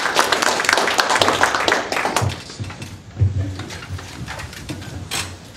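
Small audience applauding at the end of a talk. The clapping dies away about two seconds in, and is followed by a few low thumps and rustling as people get up from their chairs.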